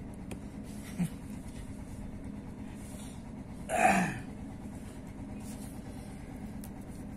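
A man's short embarrassed vocal sound, falling in pitch, about four seconds in, over a steady low hum.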